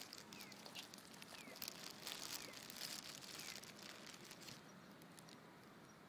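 Faint, quick crackling splashes and slurps of many fish jostling at the water's surface to feed; these thin out about four and a half seconds in. Faint short chirps falling in pitch come about once a second through the first half.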